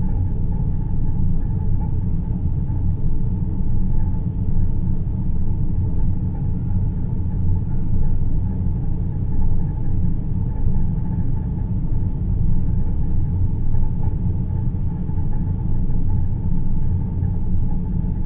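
Synthetic deep-space ambient drone: a steady, low rumbling noise with a faint hum above it.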